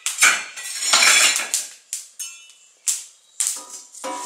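A metal frying pan being moved about on the cooktop of a wood-fired stove: a stretch of scraping, then several sharp clanks that ring briefly.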